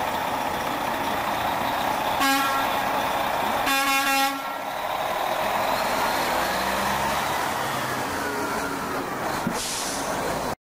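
American long-nosed truck sounding its horn twice, a short toot about two seconds in and a longer blast a second and a half later, over the steady rumble of its diesel engine and street noise as it pulls away. The sound cuts off abruptly near the end.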